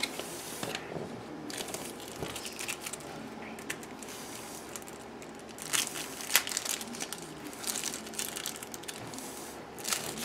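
Plastic wrapping on a pack of game cards crinkling and tearing as it is opened, in irregular rustling bursts, loudest shortly after the start and around the middle.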